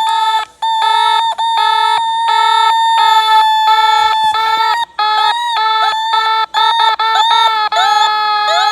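Synthesized emergency-alert tones from a mock EAS alarm: a held high tone with beeping tones layered over it and a lower tone pulsing about twice a second, broken by a few short gaps, with rising sweeps near the end.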